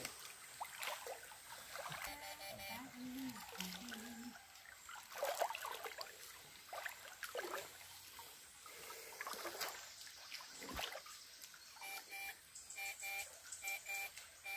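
Water splashing and sloshing irregularly as a person wades through a shallow stream. Near the end, background music with a pulsing beat comes in.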